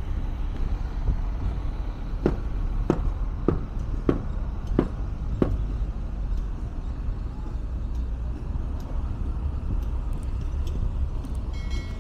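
Steady rumble of city street traffic. A run of six sharp, evenly spaced knocks comes between about two and five and a half seconds in, and a brief high tone sounds near the end.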